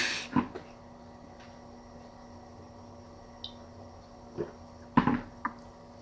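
Quiet room with a faint steady hum, broken by a few short, sudden sounds: one right at the start, small ones later, and the loudest about five seconds in.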